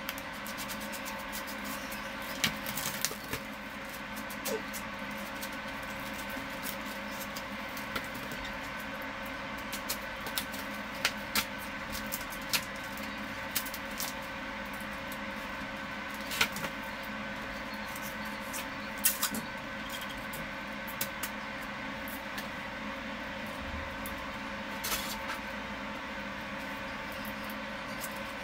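A steady mechanical hum made of several even tones, with scattered light clicks and knocks of things being handled.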